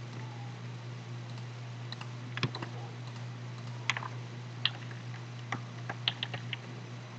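Scattered clicks of a computer keyboard and mouse, a few single clicks and then a quick cluster of them, over a steady low hum.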